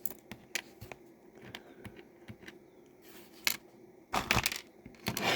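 Small plastic parts of a disassembled Cherry MX Blue keyboard switch being handled: scattered light clicks and taps, with a louder cluster of clicking and scraping about four seconds in and again just before the end.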